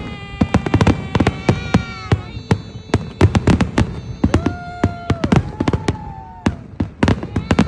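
Fireworks grand finale: a rapid, dense barrage of aerial firework bangs and crackles, several a second throughout. Long pitched tones run over the bangs.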